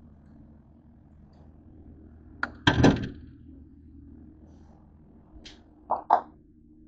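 Refrigerator door handled: a clatter of knocks as it opens about two and a half seconds in, then two sharp knocks near the end as it is shut.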